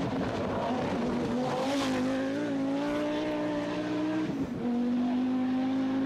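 Group B rally car's engine held at high revs, its note rising slightly, then a short break and a shift to a slightly lower steady note about four seconds in, like a gear change.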